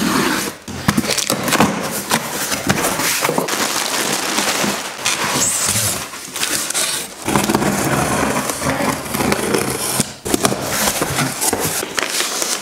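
Cardboard shipping box being unpacked by hand: packing tape cut and torn, flaps and an inner box scraping, then foam packing peanuts rustling and crackling as a hand digs through them. A dense run of crackles and scrapes with a few brief pauses.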